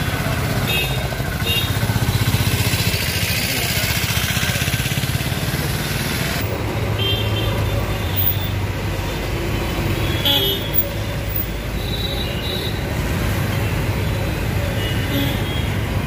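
Busy road traffic at close range: engines running steadily, with short vehicle-horn toots sounding about six times.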